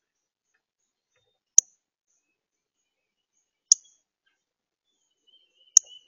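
Male northern cardinal giving sharp, high chip calls, three in all about two seconds apart.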